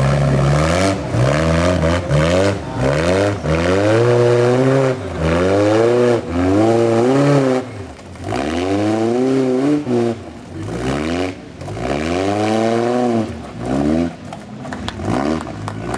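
Rock-crawler buggy's engine revving in repeated bursts, each rev climbing and dropping back, about once a second, as it crawls up a boulder climb. The revs grow weaker and more broken in the last few seconds, with a few short knocks near the end.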